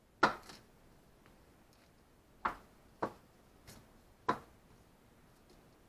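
Kitchen knife slicing through a block of Spam and knocking on the cutting board under parchment paper: four sharp knocks at uneven intervals, with a couple of fainter taps between.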